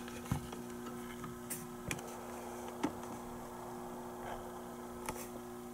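Faint, steady low electrical hum with a few light clicks scattered through it.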